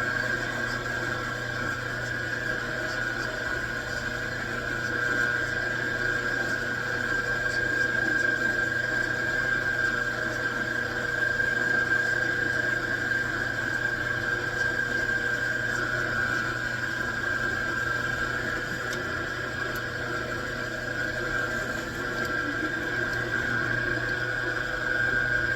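Metal lathe running steadily, with a constant high whine over a low motor hum.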